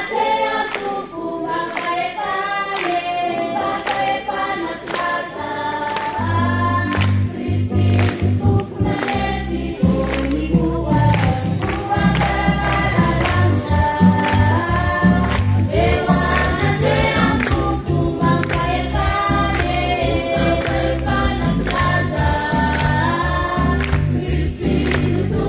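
Church choir singing a hymn, with a steady rhythmic beat. A deep low accompaniment comes in about six seconds in and makes the sound fuller.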